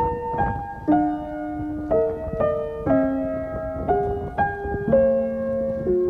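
Background music: a piano playing slow chords, a new chord struck about once a second and left to ring.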